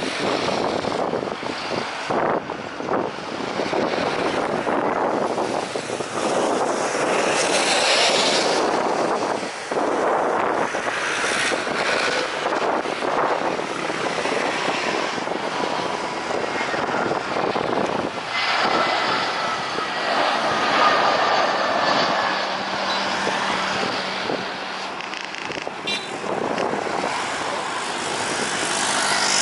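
Jet engines of a Batik Air Airbus A320 on final approach for landing: a steady, loud jet noise, with a faint whine that slides slightly down in pitch about two-thirds of the way through.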